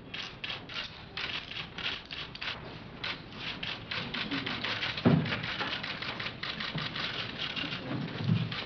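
Many camera shutters clicking rapidly and irregularly, with a dull thump about five seconds in.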